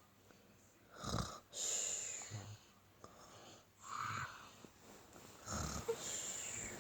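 A young child fake-snoring: about four pretend snores about a second and a half apart, each a rasping breath in followed by a hissing breath out.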